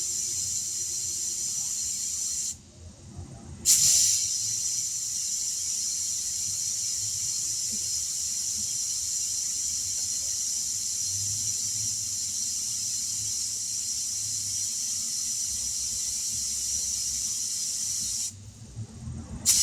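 Compressed air hissing steadily as a truck tire is inflated from an air hose on a tire machine. The airflow stops twice for about a second, once near the start and once at the end, and each time it resumes with a brief louder blast.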